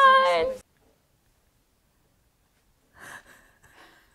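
A woman holding one long high vocal note, which breaks off about half a second in; after a silent gap, from about three seconds, a few short breathy bursts of a woman's laughter.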